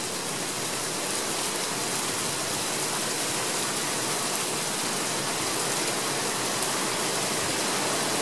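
Steady downpour from a thunder shower: an even hiss of rain that slowly grows a little louder.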